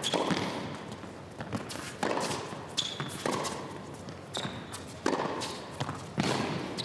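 Tennis rally on an indoor hard court: racket strings hitting the ball about once a second, each hit echoing through the arena, with short high squeaks of tennis shoes on the court between the shots.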